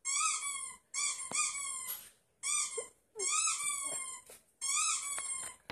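Squeaky dog toy sound effect: high-pitched squeaks rising and falling, in five short runs separated by brief pauses, with a few faint clicks among them.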